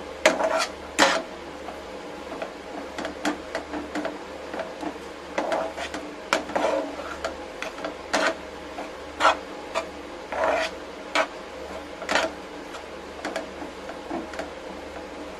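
Steel spatula scraping and knocking on a nonstick frying pan as a thick mashed potato and onion mixture is stirred and pressed, in irregular strokes about once a second. A faint low hum runs underneath.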